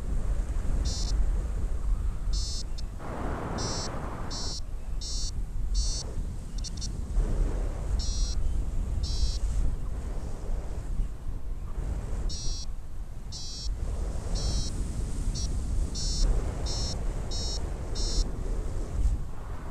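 Paragliding variometer beeping in short high beeps, coming in irregular runs, some quick, which signal that the glider is climbing. Under it, wind rushes over the microphone.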